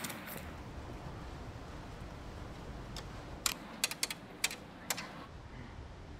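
ATM keypad buttons being pressed: a quick run of about six sharp clicks over a second and a half, starting a little past halfway through.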